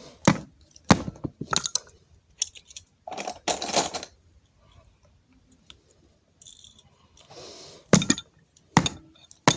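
Pencil whacking a remote control: sharp clacks at irregular intervals, with a longer rattle about three and a half seconds in.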